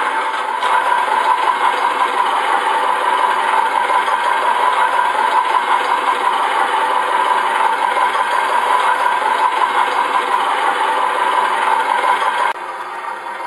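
MrRCsound module in a Tamiya Scania RC truck playing a diesel truck engine idling through its small speaker, steady and thin with little bass. The sound drops abruptly in level near the end.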